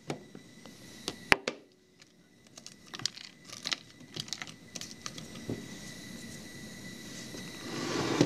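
Cloth rustling and handling noise close to the microphone as a lab-coat sleeve brushes past it. Scattered small clicks run through it, with one sharp click about a second and a half in.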